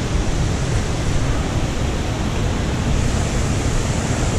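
Steady rushing of a trout stream flowing over rocks, with a low wind rumble on the microphone.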